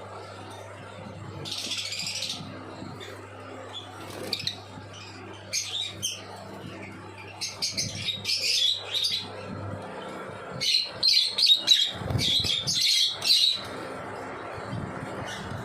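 Lovebird chicks calling in short, high chirps, scattered at first and then in fast runs that are loudest in the second half. A steady low hum runs underneath.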